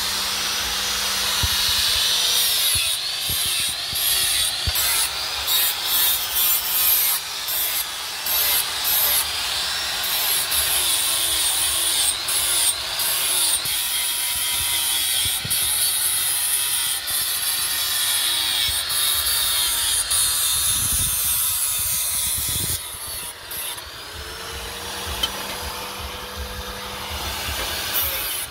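Handheld electric angle grinder grinding steel knife blades, its high whine wavering in pitch as the disc bites into the metal and eases off. About three quarters through the grinding drops away briefly, then the motor whine rises again as it speeds back up.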